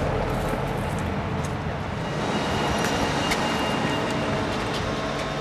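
Street ambience: a steady low rumble of traffic, with a few faint clicks.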